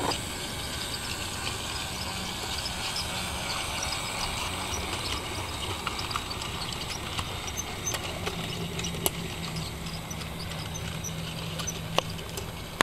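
Low steady hum of a model monorail's small electric drive running along its beam track, with light scattered ticks and two sharper clicks, one about nine seconds in and one near the end.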